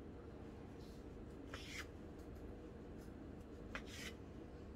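Kitchen knife slicing through a soft log of dough and meeting a bamboo cutting board: a few faint, brief scraping strokes.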